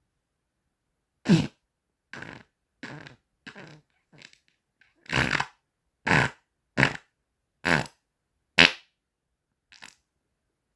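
A string of about ten short farts, each lasting a fraction of a second, with brief silences between them; one about five seconds in runs longer than the rest.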